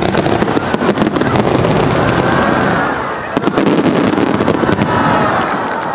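Aerial fireworks shells bursting in a rapid barrage, the bangs coming so close together that they overlap into a dense, continuous crackle and boom.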